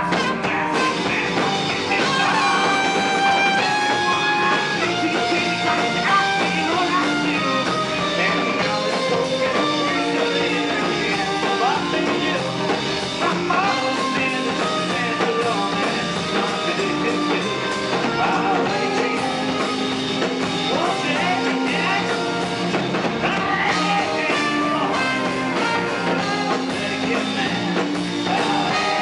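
Live folk-rock band playing, with strummed acoustic guitar, cello and drum kit, recorded in a club.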